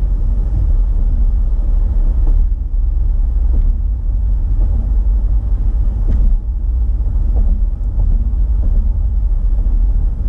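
Car driving along a highway, heard inside the cabin: a steady low rumble of road and tyre noise with the engine running underneath.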